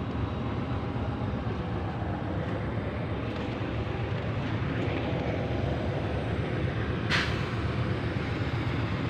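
Steady low rumble of vehicle engines, with a short hiss about seven seconds in.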